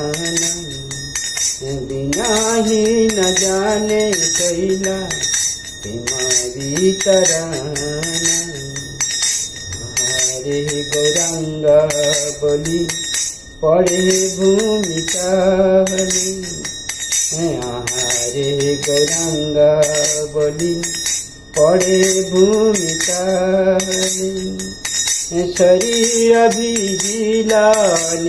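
A man singing a devotional kirtan in long, drawn-out phrases while keeping time on a pair of small brass kartals (hand cymbals), whose metallic jingling rings under the voice throughout. The singing breaks off briefly twice for breath between lines.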